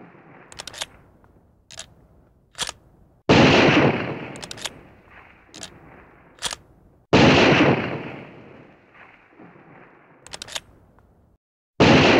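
Three loud gunshots about four seconds apart, each trailing off in a long echo, the third near the end. Short, sharp clicks come between the shots.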